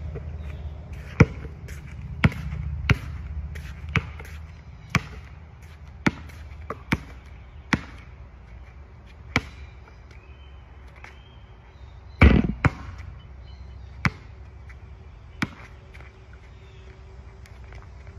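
Basketball bouncing on an outdoor asphalt court, dribbled in single sharp bounces about once a second. There is one louder, clattering impact a little past the middle.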